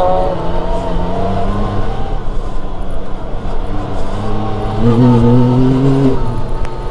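Yamaha side-by-side UTV's engine heard from inside the open cabin while driving on dirt. It runs steadily, revs up and gets louder about five seconds in, then eases off about a second later.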